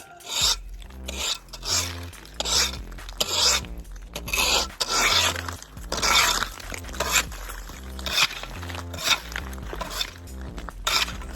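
Forged ice scraper scraping compacted ice and snow off pavement in repeated strokes, about one a second, over background music.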